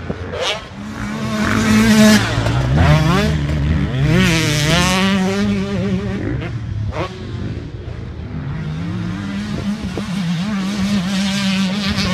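Husqvarna TC 125 two-stroke motocross bike revving hard on the track, its pitch climbing and dropping as the throttle is worked and gears change, then holding a steadier note in the second half.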